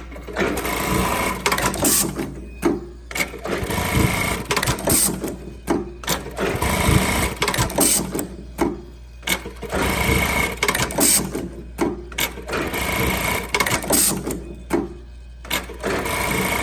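Dematron DM-438SX automatic lockstitch button-sewing machine running, sewing buttons one after another. Bursts of fast stitching clatter and clicks repeat about every three seconds, with a brief pause between cycles.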